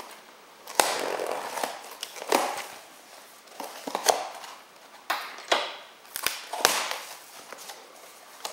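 Packing tape on a cardboard box being slit and the cardboard flaps pulled open: a run of sharp rips and scrapes of tape and cardboard, about half a dozen in all.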